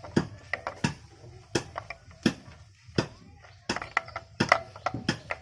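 Irregular sharp metal knocks and clinks from hand work on electric planer parts, some ringing briefly; the loudest strike is near the end.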